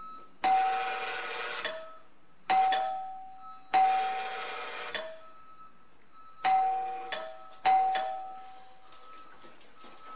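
Old wired doorbell chime rung five times, each press a bright, higher ding followed by a weaker, lower dong. The dong is faint, ding and dong only 'kind of', typical of an ageing chime that has been in the house since it was built.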